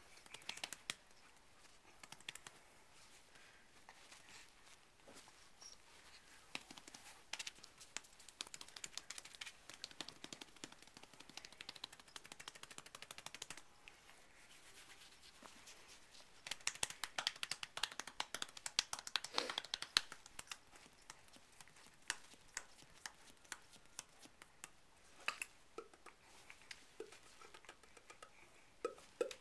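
Handling noise from a camera held close: faint scattered clicks and rustles, densest for a few seconds just past the middle.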